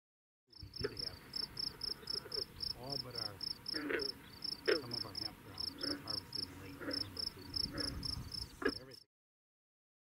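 Field ambience: an insect chirping in a fast even rhythm, about five high pulses a second, with scattered other calls over a low rumble. All of it cuts off suddenly near the end.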